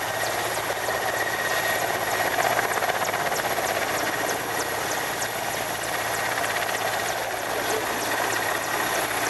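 Mil Mi-17 helicopter flying low, its main rotor and twin turboshaft engines running as a steady loud drone with a thin high whine held throughout.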